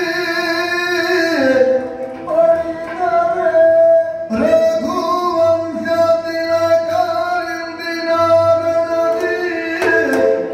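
A male singer in the Yakshagana bhagavata style sings long, sliding, held notes, with pitch changes and breaks between phrases about 1.5 and 4.5 seconds in.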